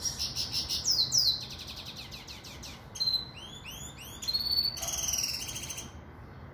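Pintagol, a canary hybrid of a Venezuelan (red) siskin crossed with a female Belgian canary, singing a fast, varied song of twitters, trills and buzzy notes. The song stops about six seconds in.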